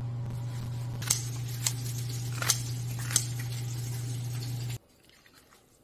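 Kitchen scissors snipping kimchi on a plate: a few sharp metal clicks spaced about a second apart, over a steady low hum that cuts off abruptly near the end.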